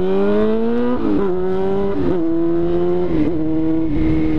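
Honda Hornet 600 inline-four motorcycle engine pulling under acceleration. Its pitch rises over the first second, dips at quick gear changes about one, two and three seconds in, then holds steady at cruising speed.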